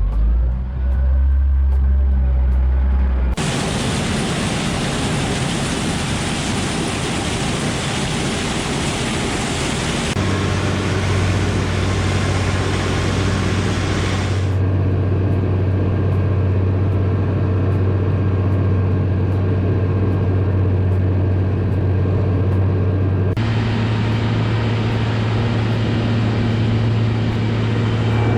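Combine harvester running at work: a steady low engine drone under a broad rushing, threshing noise. The sound changes suddenly about four times, shifting in pitch and brightness from one stretch to the next.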